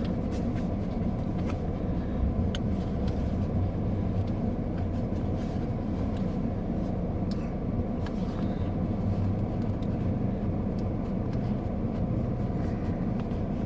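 Steady low rumble of an engine running at idle, with faint scattered clicks over it.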